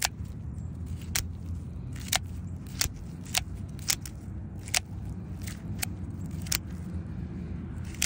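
Kershaw Livewire out-the-front automatic knife, its mechanism packed with wet, gritty soil, firing and retracting its blade over and over: about ten sharp clicks, a second or less apart. The action keeps cycling despite the dirt.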